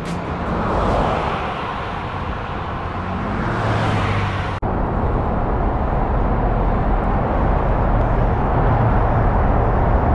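Highway traffic noise heard from a bicycle, swelling toward about four seconds in. After a sudden break, a steady, dull rumble of traffic noise inside a road tunnel, which the rider calls noisy.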